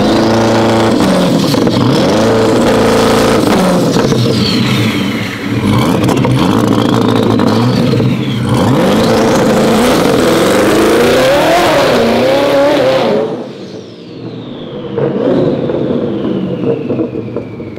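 Twin-turbo C8 Corvette V8 revving hard and accelerating, its pitch climbing and dropping sharply at each quick gear change through freshly fitted transmission clutches. About thirteen seconds in the engine sound falls away as the car moves off, leaving a high whine sliding down in pitch.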